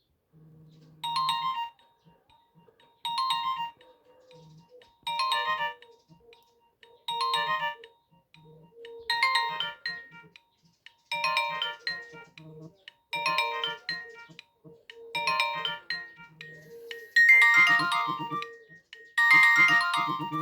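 Nokia 1280 ringtone playing: a short electronic melodic phrase repeats about every two seconds over a lower accompanying pattern, and grows fuller and louder near the end.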